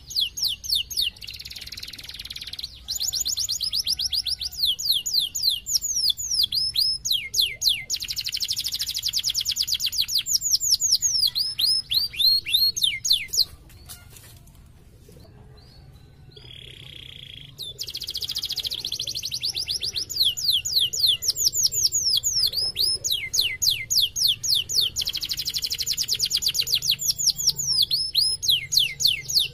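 Domestic canary singing in long runs of rapid trills, many built from quick falling whistles. The song breaks off for a few seconds near the middle, with one short buzzy phrase, then resumes at full pace.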